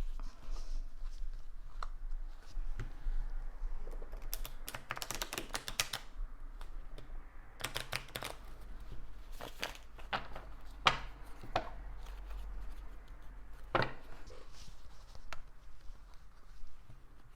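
Tarot cards being shuffled and handled by hand: bursts of rapid card flicks and clicks, the longest a few seconds in, with single sharp taps between them.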